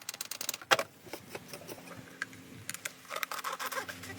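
Light clicks and taps in quick succession, with one sharper knock just under a second in. A faint steady low hum comes in about halfway through.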